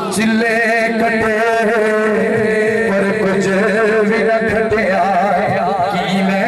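A man singing devotional verse into a microphone, amplified through a loudspeaker, holding long melismatic notes with a wavering vibrato. A steady low drone sounds beneath the voice.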